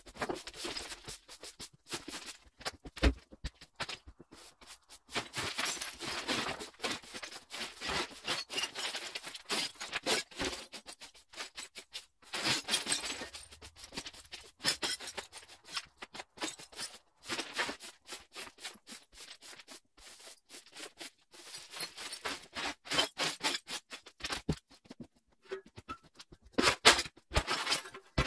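Repeated short scraping strokes, several a second, in bursts with brief pauses, louder near the end.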